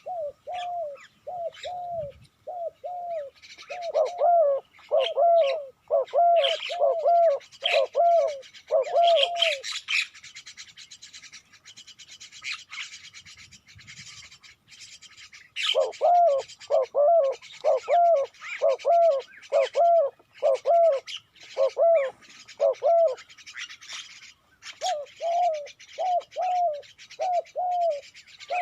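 A dove cooing: runs of short, quick coo notes, breaking off for a few seconds near the middle before starting again. Other small birds chirp high and busily underneath.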